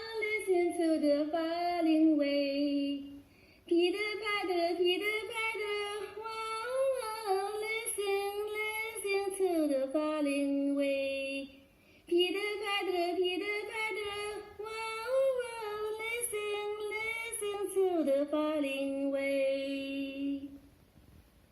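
A young girl's voice singing without accompaniment, in three long melodic phrases with short breaks between them. It stops about a second before the end.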